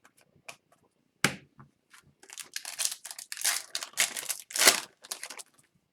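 A foil hockey card pack being torn open, its wrapper crinkling and crackling in a run of rustles, after a single sharp knock about a second in.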